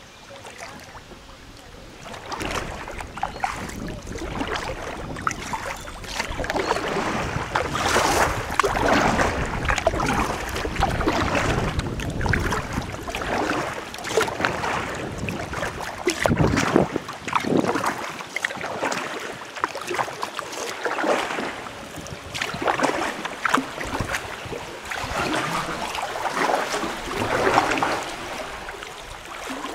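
Kayak paddle strokes dipping and splashing in river water, repeating about every second or so, with water swishing along the hull. Wind rumbles on the microphone through the first half.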